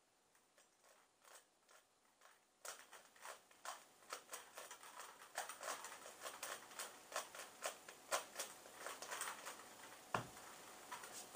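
3x3 Rubik's cube being turned fast during a speedsolve: rapid plastic clicking of the layers snapping round, sparse and faint at first, then dense and quick from about three seconds in, with one sharper knock near the end.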